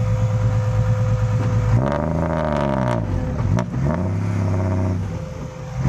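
Diesel engine of a loaded six-wheel dump truck revving hard with a very loud exhaust as it tries to climb out of a laterite pit. Its pitch sags and climbs back twice in the middle, then drops off near the end.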